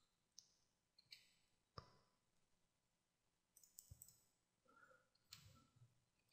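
Near silence with a handful of faint, short computer mouse clicks and key presses, scattered about a second apart.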